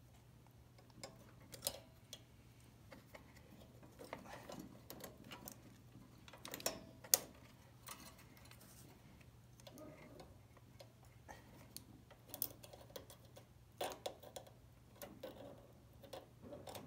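Needle-nose pliers clicking and tapping on a fuel-line hose clamp and the carburetor's metal parts as the clamp is worked back on: faint, irregular small clicks, with one sharper click about seven seconds in.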